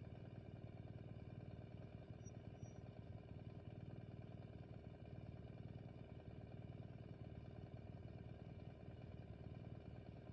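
Motorcycle engine idling steadily while stopped, a faint, even low rumble.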